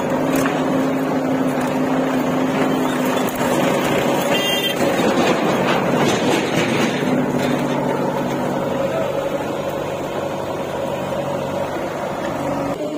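Diesel engine of a JCB 3DX backhoe loader running steadily close by, with a louder, rougher stretch for a few seconds in the middle.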